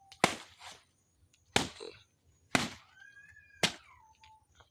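A blade chopping into fallen plantain, four sharp blows about a second apart.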